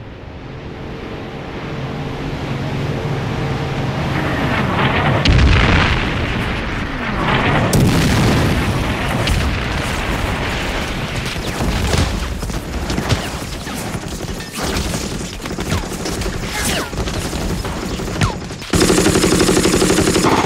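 Battle sound effects of the Omaha Beach landing. A low drone swells over the first few seconds, then a deep explosion hits about five seconds in. Scattered gunshots and blasts follow, and sustained rapid machine-gun fire starts near the end.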